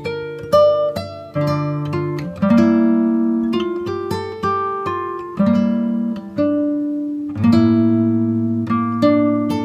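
Background music: plucked acoustic guitar picking chords, with a new chord struck about every second and left ringing.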